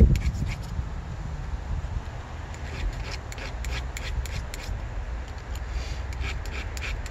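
Hand file strokes on a chainsaw chain clamped in a vise, taking down the rakers (depth gauges): a few short rasping strokes about two and a half seconds in and a few more near the end. A bump at the very start and a low steady rumble lie under them.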